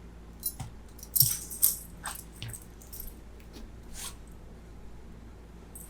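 Short metallic jingles and rustling as a dog shifts while its front leg is handled: a few quick jingles, the loudest two between one and two seconds in, then fainter ones.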